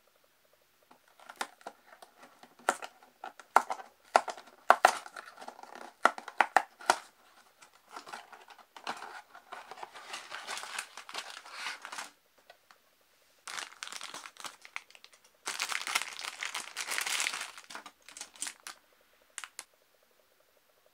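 Hand-opened cardboard toy box: sharp taps and clicks of the cardboard and its flaps for the first several seconds, then plastic packaging crinkling and tearing in three stretches.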